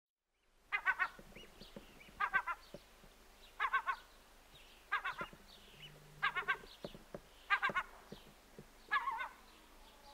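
A seabird calling overhead: a rapidly pulsed call repeated seven times, about every second and a half, starting about half a second in.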